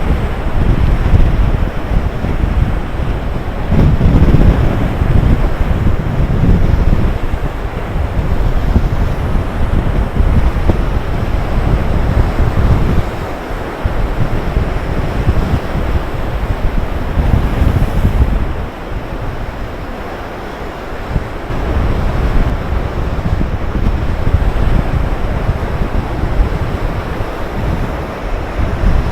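Heavy storm surf breaking and surging, with strong wind buffeting the microphone. The level dips briefly about thirteen seconds in and again around twenty seconds in.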